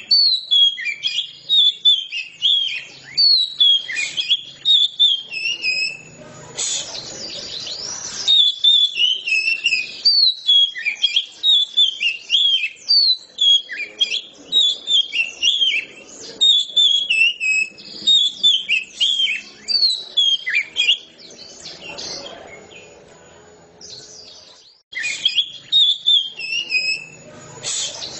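Oriental magpie-robin (kacer) in full, continuous song: loud, fast runs of varied whistled phrases and trills. The song breaks off for a few seconds about three-quarters of the way through, then starts again.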